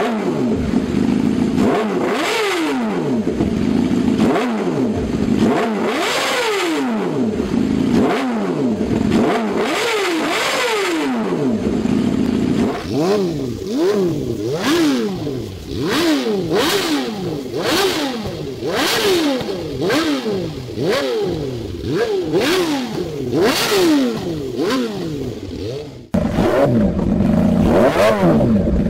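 Yamaha YZF-R6 inline-four engine revved through an aftermarket exhaust in repeated sharp throttle blips, each note rising and falling. The blips come quicker, about one a second, in the second half. After a sudden cut near the end, a steadier engine note follows.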